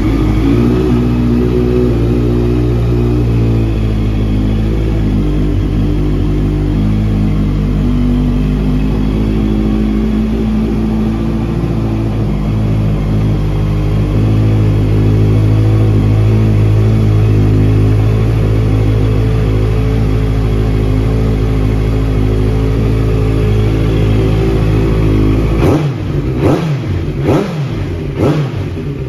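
Honda CBR650F's 649cc inline-four engine running through an aftermarket Scorpion exhaust, just after starting, idling steadily and loudly. About 26 s in, the revs rise and fall several times in quick throttle blips.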